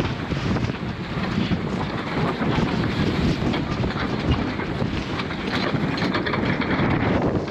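Wind buffeting the microphone aboard a sailing schooner, a steady low rumble.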